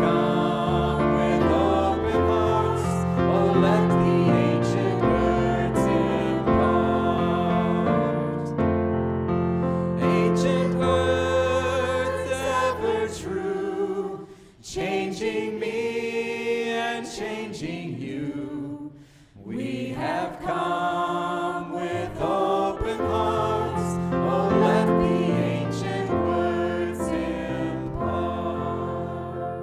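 Many voices singing a worship song together over instrumental accompaniment with sustained bass notes. The music drops away briefly twice near the middle.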